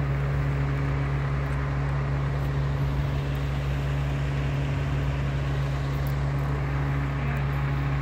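Steady rushing noise with a constant low hum running under it, unchanging throughout.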